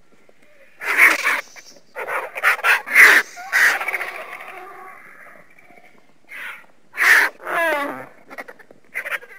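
Harsh, raspy animal-like screeching calls used as a made-up creature sound: a loud call about a second in, a cluster of calls between two and four seconds, then more after a pause from about six seconds, one near eight seconds sliding down in pitch.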